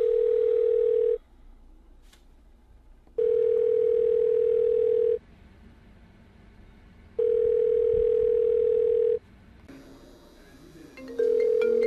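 Telephone ringback tone of an outgoing call: one steady mid-pitched tone, ringing for about two seconds with two-second gaps, three times. Near the end a marimba-like phone ringtone starts playing along with a fourth ring.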